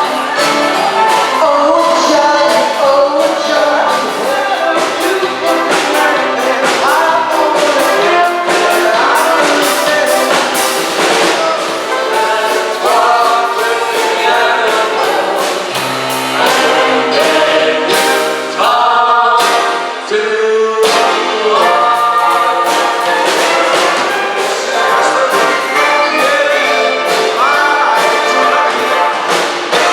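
A live swing big band playing, with the brass section of trumpets and trombones prominent. The band thins out briefly about two-thirds of the way through, then comes back in full.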